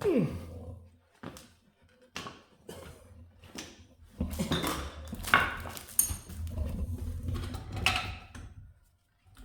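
Metal clanking, knocking and scraping as a heavy old electric motor is heaved up and set onto a cast-iron lathe, a string of separate knocks with a low rumble under the second half.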